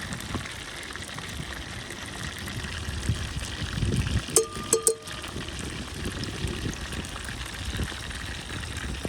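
Water running or trickling steadily, with a brief squeak and a few clicks about halfway through.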